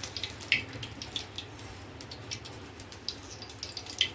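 Cooking oil heating in a kadhai over a gas flame, crackling with scattered small pops over a steady low hiss.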